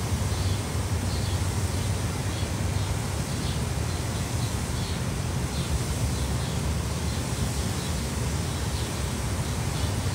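Steady outdoor background noise: a low rumble with an even hiss over it, and faint high chirps scattered through.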